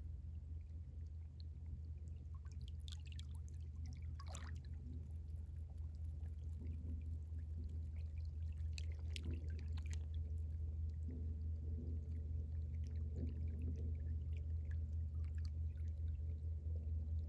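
Tidal water moving along the shore over a steady low rumble, with small trickling and gurgling ticks and a few brief splashes about three to four seconds in and again around nine to ten seconds. It grows slowly louder throughout.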